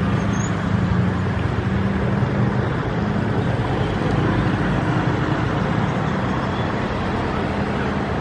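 Steady engine and traffic noise with a low hum that weakens about three seconds in.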